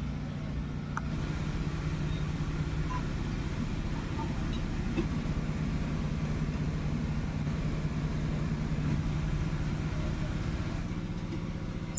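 A steady low mechanical hum, like a motor running, with a few faint clinks of a serving spoon on a steel plate.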